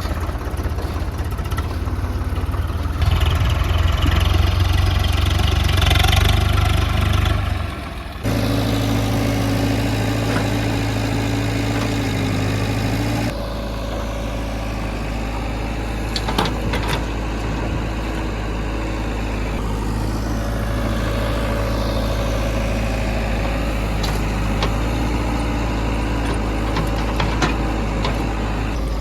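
Heavy diesel machinery engine running, louder and revving for a few seconds, then changing abruptly about eight seconds in to a steady idle-like run with a few sharp clanks.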